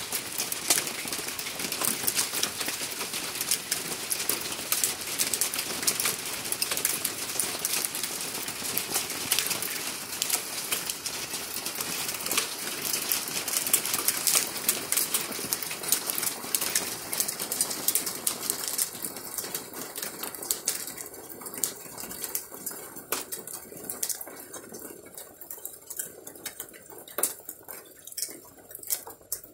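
Hail pelting down, a dense rattle of small hard impacts on hard surfaces. About two-thirds of the way through it thins, ending as scattered separate clicks.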